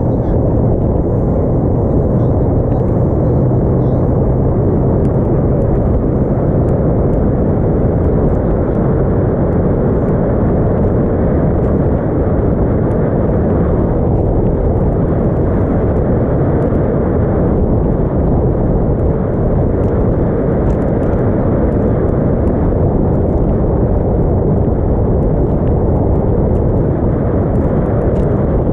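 Small aluminium motorboat underway at speed: a steady low rumble of wind buffeting the microphone and water rushing along the hull, with the engine's low hum under it.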